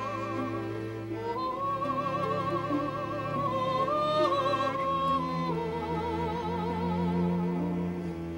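Operatic soprano singing long, high notes with wide vibrato, moving down to a lower note about halfway through. Under her, a choir of eight cellos holds sustained low notes.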